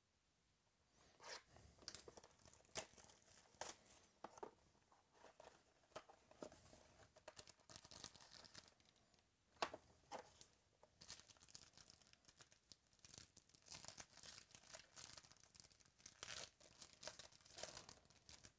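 Trading-card packaging being torn open by hand: a sealed 2017 Topps Tier One box unwrapped and opened, then its foil pack wrapper ripped and crinkled. Faint, in a run of sharp crackles and rips with short pauses, starting about a second in.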